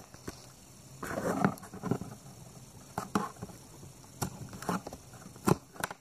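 Scattered light clicks and a brief rustle of hands working on an opened Acer Nitro 5 laptop, freeing the hard drive's SATA and power adapter cable from its connector.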